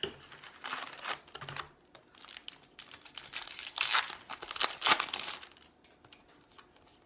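Foil wrapper of a baseball card pack crinkling and tearing as it is pulled from the box and ripped open by hand, loudest about four to five seconds in, then dying away.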